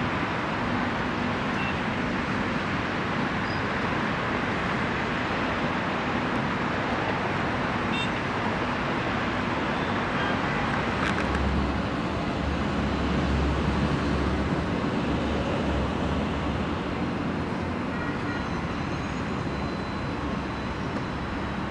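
Distant city traffic heard from high up: a steady, even hum of road noise. A deeper rumble swells for a few seconds about halfway through.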